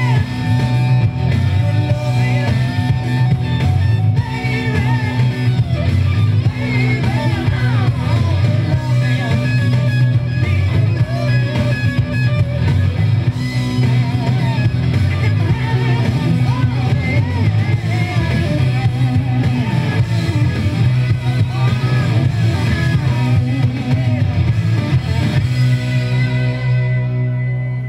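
A rock record playing on an AMI Rowe jukebox, with electric guitar, drums and singing. The song fades out near the end.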